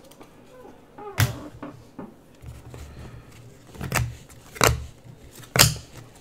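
Trading cards being flipped through by hand: a short, sharp card snap as each card is slid off the stack, four times, the last three in quick succession.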